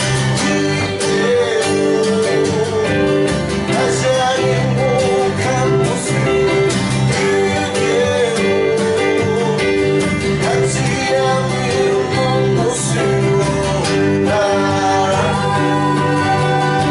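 Live acoustic song performance: acoustic guitar strummed and picked under a singing voice.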